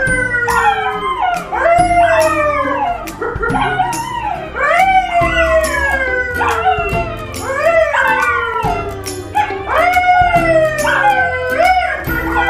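A man and two dogs, a poodle and a yellow Labrador, howling together: long overlapping howls that rise and then slide down, starting anew every second or two, with background music underneath.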